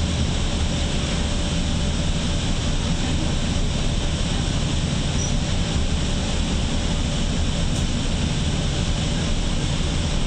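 Steady rumble and road noise of a moving shuttle bus, heard from inside the cabin.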